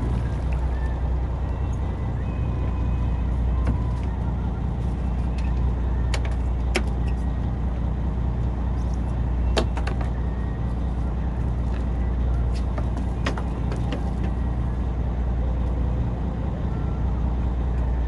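Boat engine running steadily with a low drone, with a few sharp clicks or knocks on board.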